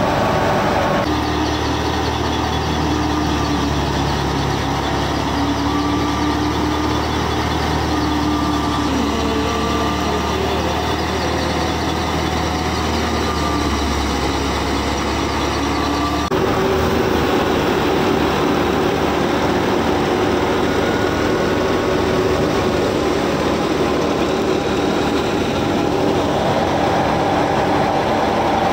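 A miniature model thresher running: its small motor and spinning drum give a steady mechanical running sound. The sound changes abruptly about a second in and again about halfway through.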